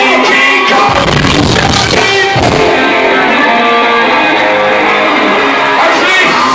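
Live band music playing loud in concert: electric guitar with a voice singing over it.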